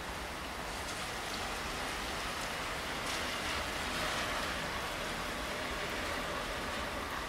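Steady rainfall: an even hiss with a few separate drops ticking, swelling slightly about halfway through.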